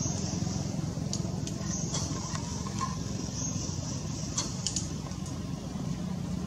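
A steady low mechanical hum, with a steady high hiss above it and several short sharp clicks or chirps scattered through the middle.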